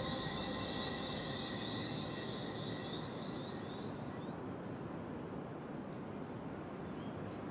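Steady outdoor background noise, an even rushing hiss, with a high-pitched ringing that fades away over the first few seconds and a few faint ticks.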